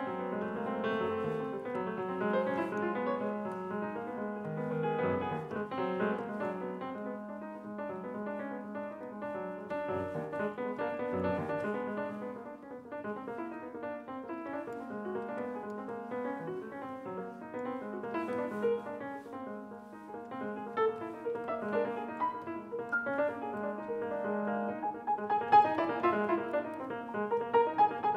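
Grand piano played solo: a dense, continuous flow of notes across the middle and upper keyboard, growing louder and more accented near the end.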